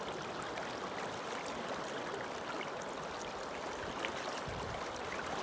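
Swift river current rushing steadily.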